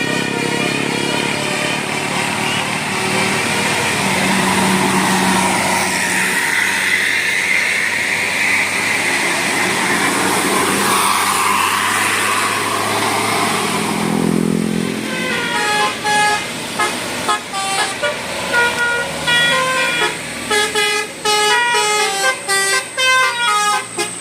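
A tour bus's 'telolet basuri' multi-tone musical horn playing a quick melody of short, stepped notes, starting about fifteen seconds in. Before that there is a loud, steady rush with slowly sliding tones.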